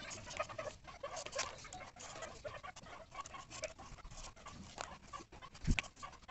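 Plastic weaving strip clicking and rubbing against bamboo slats as it is threaded and pulled through, with wavy squeaky whines over it and one sharp knock near the end.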